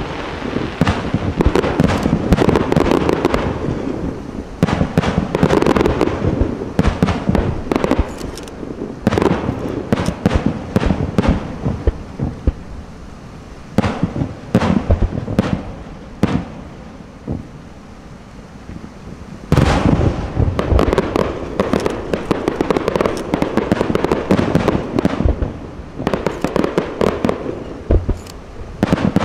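Aerial fireworks display: shells bursting in rapid, overlapping bangs and crackles. The bangs thin out in the middle, then a dense run picks up again about two-thirds of the way through.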